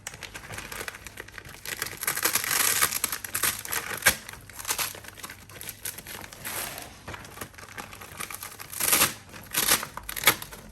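Fabric and plastic of a food-delivery bag rustling and crinkling as it is handled and fitted together, with a sharp click about four seconds in and two short loud rips near the end.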